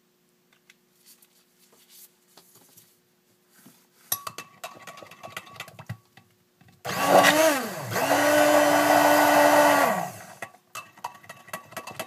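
Immersion stick blender mixing cold process soap batter, blending in colorant. It gives a short pulse, a brief drop, then a steady two-second run before spinning down. Quieter clinks of handling come before it.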